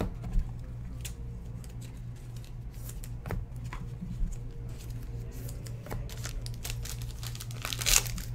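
Hands handling trading cards and foil pack wrappers: scattered clicks and rustles, with a louder crinkle of foil near the end. A steady low hum runs underneath.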